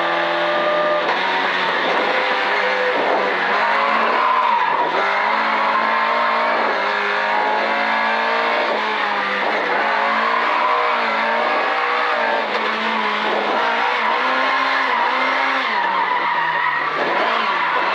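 Race car engine heard from inside the cabin, revving up and dropping back over and over as the car is driven hard through a slalom-style course, with tyres squealing at times.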